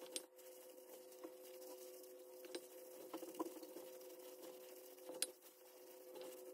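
Gloved hands working damp bath bomb powder in a stainless steel bowl: soft rustling and squishing with a few light clicks as the hands or gloves touch the bowl, the sharpest about five seconds in. A faint steady hum sits underneath.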